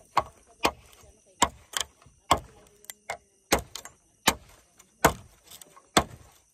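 A hand tool striking a wooden stake held against a log, about ten sharp knocks with a dull thud, spaced unevenly roughly half a second to a second apart.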